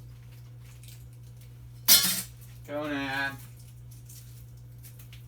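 A hard object is knocked or set down on the work table with one sharp clatter about two seconds in. About a second later comes a short pitched call, a cat's meow. A steady low hum runs underneath.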